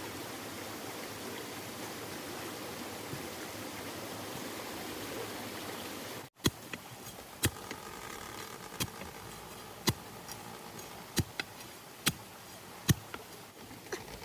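Steady rush of a stream. About six seconds in it cuts off suddenly, and a series of sharp knocks follows, roughly one a second.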